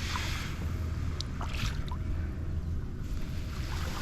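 Water sloshing and splashing against a kayak, with two short splashes near the start and about one and a half seconds in, over a steady low wind rumble on the microphone.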